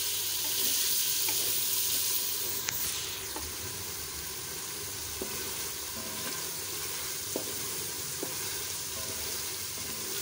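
Chicken pieces sizzling in hot oil with fried onions and garlic-ginger paste in a metal pan, stirred with a wooden spatula. The spatula scrapes and taps lightly against the pan now and then. The chicken is being browned, cooked until it turns white.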